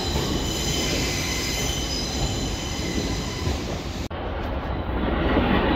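An LNER Class 801 Azuma electric train running past along the platform, with a steady high-pitched whine over wheel-on-rail noise. The sound cuts off abruptly about four seconds in and gives way to a duller, rumbling railway noise.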